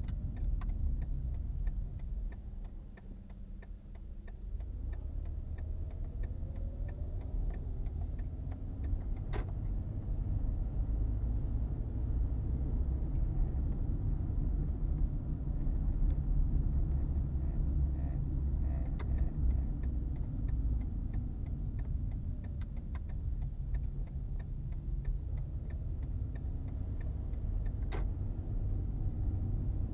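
Car cabin noise at low speed: the engine and tyres make a steady low rumble. It dips around three seconds in, then picks up again. A couple of sharp clicks come through, one near the middle and one near the end.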